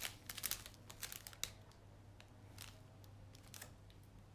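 Plastic packaging crinkling as it is handled, in a quick run of short rustles in the first second and a half and a few scattered ones after.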